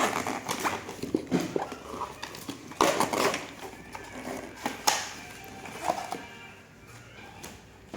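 Toy packaging being opened by hand: irregular rustling and crackling with a few sharp clicks and knocks, louder about three, five and six seconds in.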